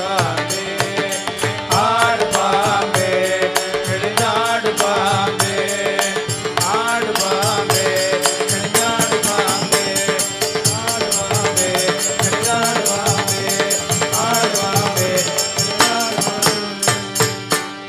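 Devotional bhajan music without words: a wavering melodic line over a steady drone, with fast, even percussion strokes and a pulsing drum beat, breaking off suddenly near the end.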